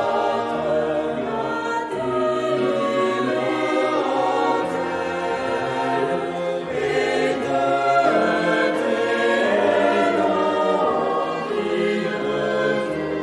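Choral music: a choir singing slow, sustained notes that change pitch slowly.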